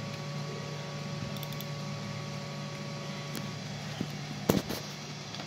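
Steady low hum with a faint higher steady tone, broken by a few sharp clicks after about three seconds, the loudest a quick pair of clicks near the end.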